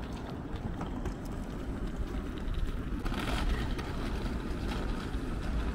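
Steady low rumble of city street noise, with faint scattered clicks over it.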